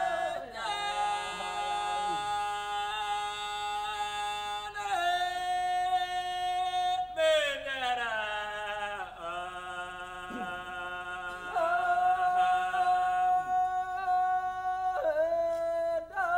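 Wodaabe Geerewol « petit chant »: several men's voices singing unaccompanied in parts. They hold long notes and drop between them in quick falling slides, one sweeping slide about halfway through.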